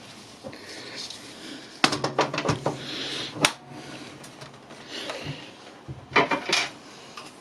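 PC case side panel being handled and fitted onto the case: a cluster of knocks and clicks about two seconds in, a single sharp click a little later, and another cluster of clicks near the end.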